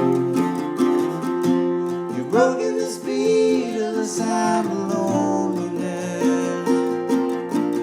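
Northfield flat top octave mandolin picking an instrumental passage of an acoustic folk song, with a steady run of plucked notes.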